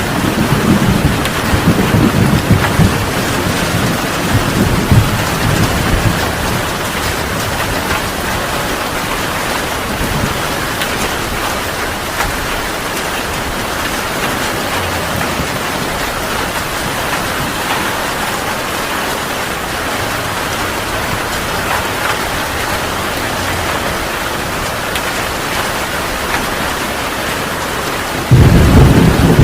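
Heavy rain falling steadily, with a thunder rumble dying away over the first few seconds and a new loud, sudden roll of thunder breaking in near the end.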